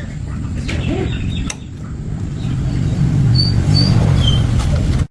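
Honda 110 motorcycle's small single-cylinder engine running, a low rumble that grows louder about three seconds in and cuts off suddenly at the end.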